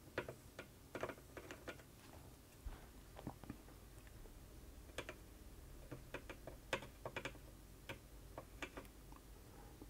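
Faint, irregular small clicks and taps from a soldering iron tip and solder wire working along the legs of a surface-mount chip on a circuit board while it is desoldered with low-melt removal solder.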